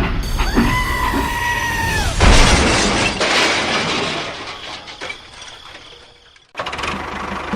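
A held tone of about a second and a half, then a loud crash that dies away over a few seconds. Near the end it cuts abruptly to a steady, rhythmic machine-like sound.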